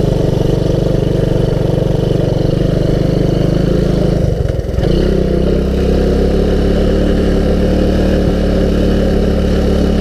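1985 Honda ATC200S three-wheeler's single-cylinder four-stroke engine running steadily while riding, with a brief dip and a change in its note about four and a half seconds in.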